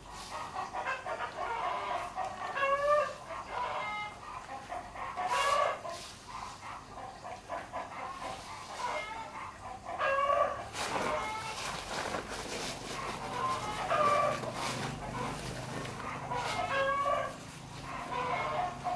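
Farmyard chickens calling again and again in short clucks. A rustling about halfway through comes from chopped greens being gathered into a plastic bucket.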